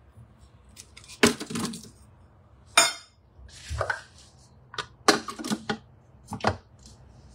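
A series of knocks and clatters: onion pieces dropping into a kitchen machine's stainless steel mixing bowl, followed by its plastic lid being set on and fitted in place.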